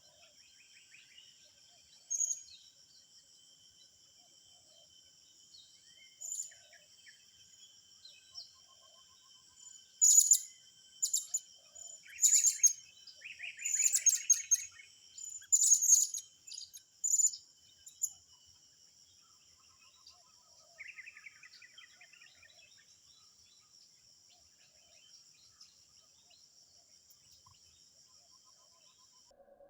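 Sharp, high-pitched bird calls, loudest in a rapid cluster from about ten to eighteen seconds in, with a few scattered single calls before and after, over the steady high buzzing of insects that stops just before the end.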